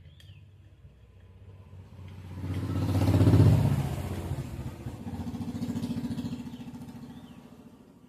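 A passing motor vehicle's engine, swelling to a loud peak about three seconds in and fading away, with a second, weaker swell around six seconds.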